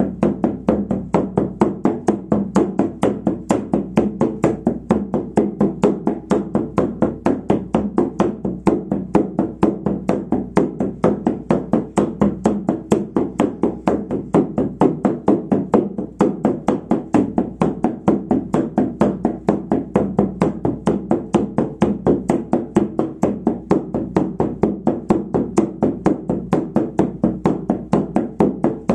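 Large frame drum struck with a beater in a steady, even beat of about four strokes a second, each stroke ringing low: the monotonous drumming of a shamanic journey.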